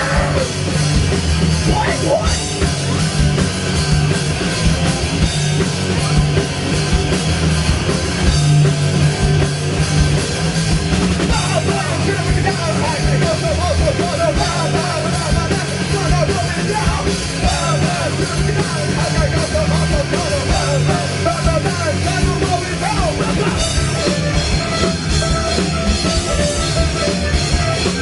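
Live rock band playing a loud, heavily distorted punk/metal song: grinding guitars and drums, with shouted vocals.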